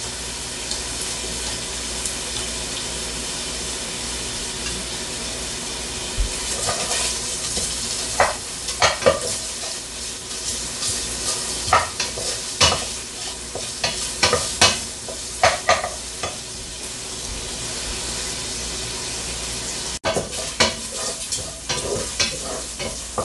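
Chopped bacon sizzling steadily as it renders in a stainless steel pot, with a wooden spoon stirring and knocking against the pot in clusters of short scrapes through the middle and again near the end.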